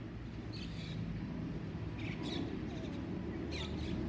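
Distant, steady low rumble of an Airbus A320-216's CFM56 jet engines passing overhead, with birds chirping briefly three times.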